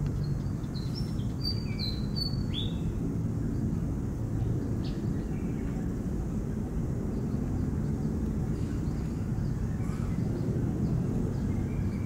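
Steady low outdoor rumble with a few short, high bird chirps in the first three seconds, one of them sliding downward.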